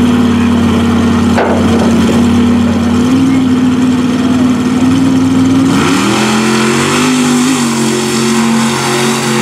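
Unlimited-class mud truck's engine running steadily, then revving up about six seconds in and holding the higher pitch for a second or so before easing back.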